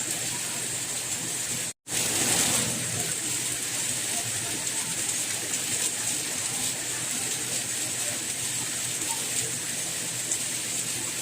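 Steady rain, an even hiss of falling water. About two seconds in it cuts out to silence for an instant, then comes back slightly louder for a moment before settling.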